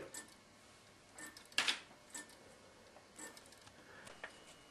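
Faint ticking of a wooden-movement pendulum clock: sharp clicks roughly once a second with a few softer extra clicks between, and a faint high steady tone coming in near the end.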